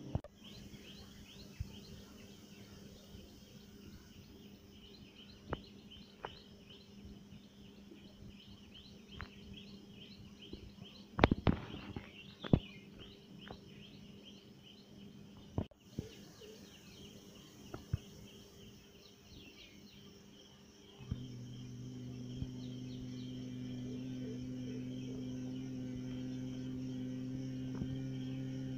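Outdoor ambience of birds chirping, broken by scattered sharp clicks and knocks, the loudest a cluster about eleven to twelve seconds in. About twenty-one seconds in a steady low drone sets in and holds.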